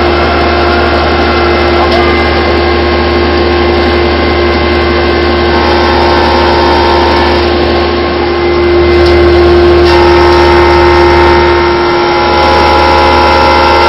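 Milltronics VM-15 CNC mill with its spindle running and end mill cutting the side of a flashlight body under splashing flood coolant, a steady machine whine over a noisy hiss. The sound grows a little louder for a few seconds past the middle.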